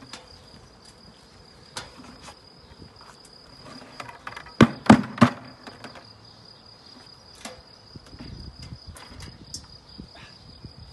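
Insects around a hanging honeybee swarm: a steady high-pitched insect trill with bees buzzing. Three sharp knocks a little before halfway are the loudest sounds, with scattered lighter clicks.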